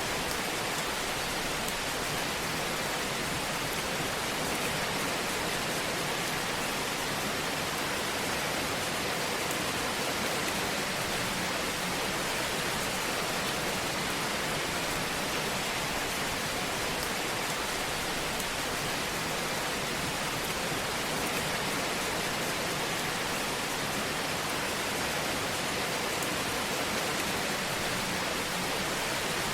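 Fireplace sound track giving a steady, even hiss with no distinct pops or crackles standing out.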